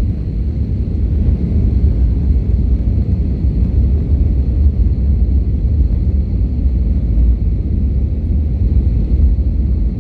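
Steady low rumble of an Airbus A320 airliner's jet engines on approach, mixed with wind buffeting the microphone, with a faint thin whine above it.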